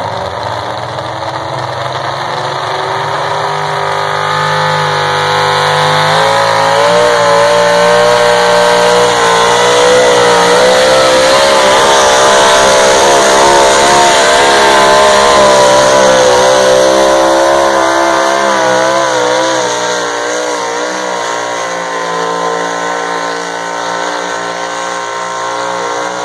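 Pulling pickup truck's engine at full throttle as it drags a weight-transfer sled down the dirt track, very loud with its pitch wobbling as the tyres bite and slip. It builds over the first few seconds and eases off near the end of the pull.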